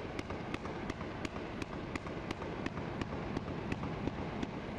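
Gunfire: an evenly spaced series of sharp distant cracks, about three a second, over a steady background noise.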